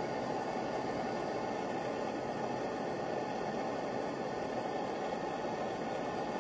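Handheld gas torch burning steadily: a constant, even hiss of flame with no change.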